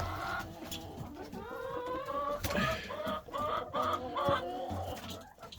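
Several hens clucking and murmuring at once, their short calls overlapping, with a few knocks in between.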